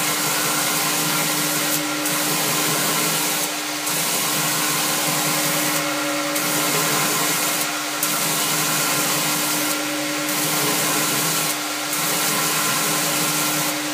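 Homemade belt-driven surface grinder running steadily: the motor and the abrasive belt over the contact wheel give a steady hum with a hiss as the belt grinds a steel bar. The sound shifts in a regular cycle about every two seconds as the table is cranked back and forth under the wheel.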